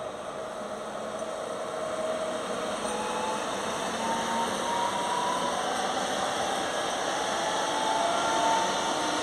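Pesa Elf (EN76) electric multiple unit passing close by, its rolling noise growing louder, with a whine from the electric drive that rises slowly in pitch as the train gathers speed.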